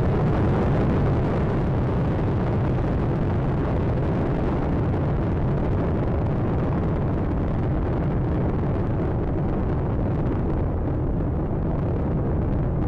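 Space Shuttle Atlantis lifting off and climbing, its rocket engines and solid rocket boosters giving a steady, deep roar that thins a little at the top toward the end.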